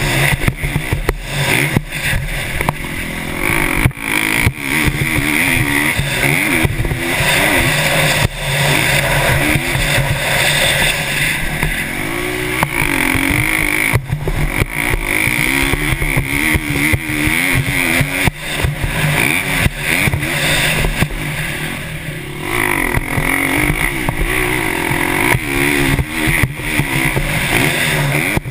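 KTM 350 SX-F's single-cylinder four-stroke engine ridden hard on a motocross track, its pitch climbing and dropping again and again as it is revved and shifted. Heard from a helmet camera, with wind noise and knocks over the microphone.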